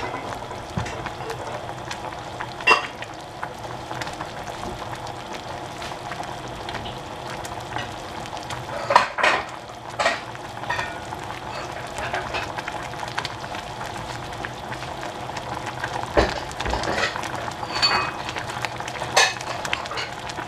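Soup thickened with cornstarch boiling in a saucepan on a gas stove: a steady bubbling hiss with many small pops, and a few louder pops scattered through.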